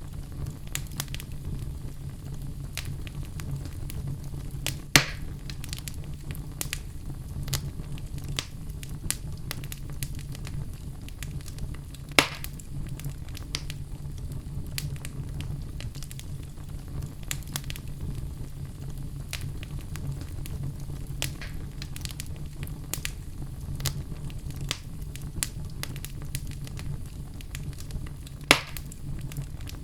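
Fire burning in a fireplace, crackling constantly over a steady low rumble, with three loud pops about five, twelve and twenty-eight seconds in.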